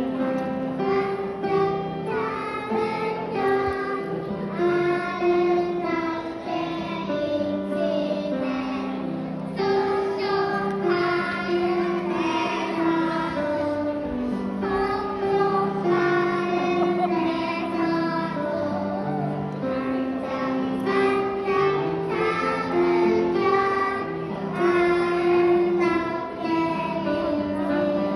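A small chorus of young children singing a Korean children's song together.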